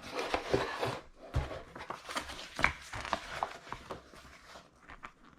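Lock box being opened by hand and its contents handled: irregular rustles, scrapes and light clicks that die down near the end.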